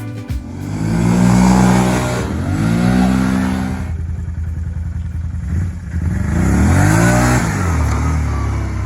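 Can-Am Renegade ATV engine revving up and dropping back three times, each a rising then falling pitch.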